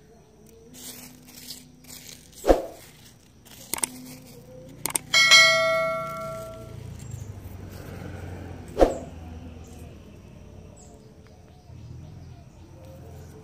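Subscribe-button sound effect: a couple of quick clicks, then a bright bell ding that rings out for about a second and a half. A few other sharp clicks and taps come before and after it.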